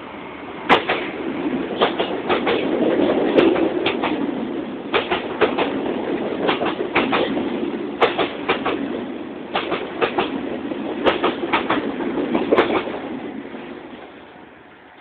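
Train wheels rolling over a loose, floating rail joint (a fishplate joint). Sharp clacks come in quick groups as each bogie's wheels strike it, over a steady rolling rumble that fades away near the end.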